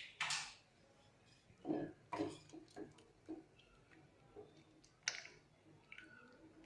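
Cooked lentils being mashed with a wooden masher (mathu) in the pot: a few soft, irregular knocks and squelches, with a sharp click at the start and another about five seconds in.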